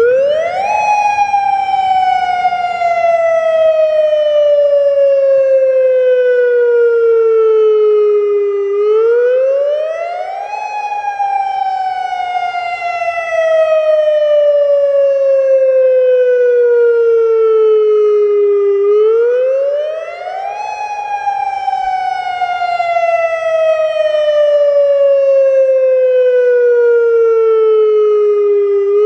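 Federal Signal Modulator 3012 electronic outdoor warning siren sounding its wail tone on a test: the pitch rises quickly, then slowly falls over about eight seconds, and the cycle repeats three times.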